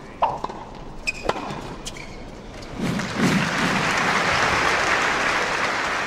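Sound effects for an animated logo reveal: a few sharp clicks and knocks, then a whooshing noise swell that rises from about three seconds in, with low thuds at its start, and fades near the end.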